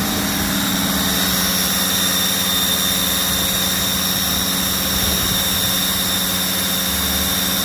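A Mercedes OM612 2.7 CDI five-cylinder diesel held steady at about 2200 rpm, with a steady high-pitched whistle from under the hood on top of the engine note. The whistle appears with revs from about 2000 rpm, a symptom the owner is tracing as a suspected turbo whistle.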